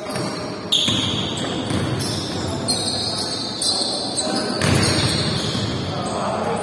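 Basketball being played on a wooden gym floor: sneakers squeaking and the ball bouncing, with sharp knocks about a second in and again near five seconds.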